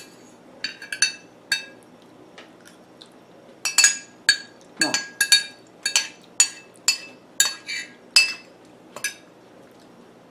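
Metal spoon clinking against a ceramic soup bowl: a few ringing clinks, then a quick run of about a dozen as the bowl is scraped, stopping about a second before the end. Midway there is one short falling voice sound.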